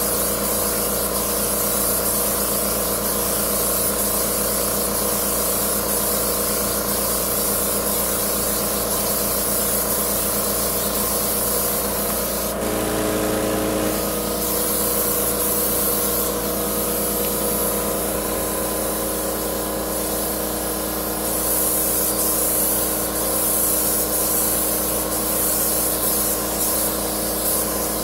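Titan AirCoat air-assisted airless paint sprayer in use: a steady hiss of atomised coating from the spray gun over the continuous hum of the sprayer's machinery. About halfway through, the hum briefly changes pitch for a second or so.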